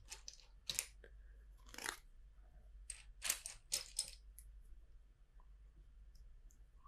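Plastic LEGO bricks clicking and rattling as pieces are picked out of a loose pile: a scattering of short, faint clicks, most of them in the first four and a half seconds.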